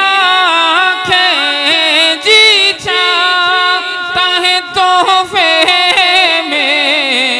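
A man singing a naat unaccompanied into a microphone, drawing out long, wavering notes that glide from pitch to pitch with no clear words.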